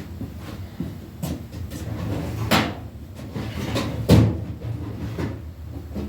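Scattered knocks and clatter of rummaging for a tool, with drawers or cabinet doors opening and closing, the loudest knock about four seconds in, over a low steady hum.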